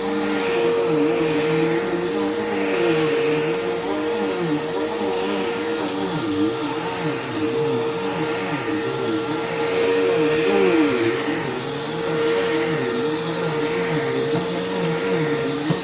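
Bissell PowerForce Helix upright vacuum cleaner running on carpet, a steady hum with lower tones that waver up and down every second or so.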